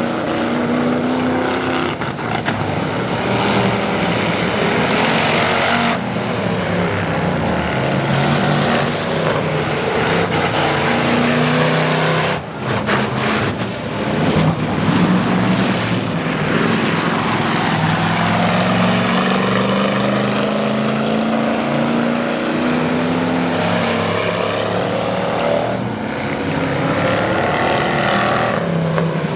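Several Cruiser-class race cars running on the track, their engines rising and falling in pitch as they rev and pass.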